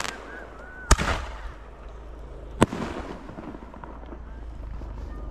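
Aerial fireworks bursting: two sharp bangs, about a second in and again near the middle, each trailing off briefly.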